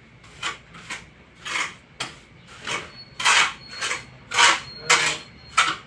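Steel trowel scraping tile adhesive across the back of a floor tile, in short repeated strokes about two a second.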